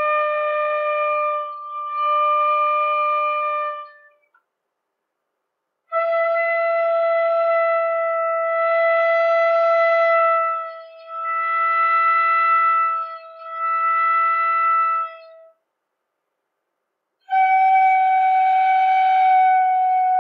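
Shinobue (Japanese bamboo transverse flute) playing slow, long held notes, each lasting several seconds and briefly re-tongued, with pauses for breath between them; each new note is a little higher than the last. The intonation is slightly off.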